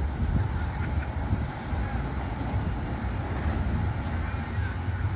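Wind buffeting the microphone as a steady low rumble, over the even wash of surf breaking on the beach.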